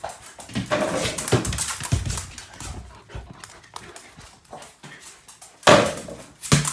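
A dog whimpering and moving about on a hard floor, among irregular knocks and bumps. About five and a half seconds in there is a loud bang as a small ball hits the mini basketball hoop's backboard on the door.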